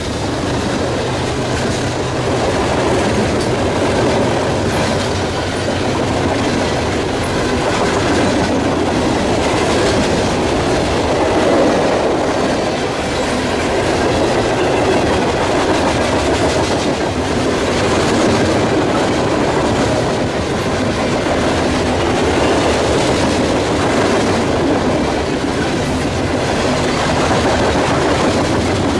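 Freight train of open-top hopper cars rolling past at speed: a steady rumble of steel wheels on rail with clickety-clack over the rail joints.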